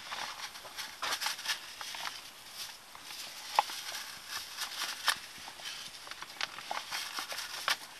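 Irregular scrapes and clicks of hand tools working through dirt, with a sharper tick about three and a half seconds in and another about five seconds in.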